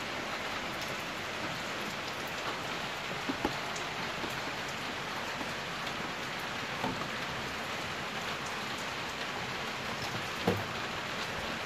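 Steady rain falling, an even hiss of patter with no break. A few light knocks are heard about three seconds in and again about ten seconds in.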